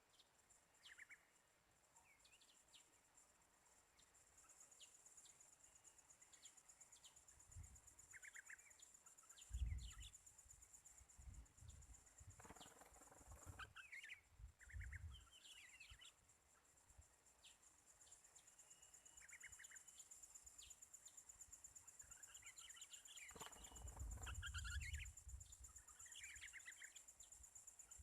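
Faint short chirps and calls of small songbirds, scattered throughout, over a steady high-pitched pulsing insect drone. Two low rumbles come about ten seconds in and again near the end.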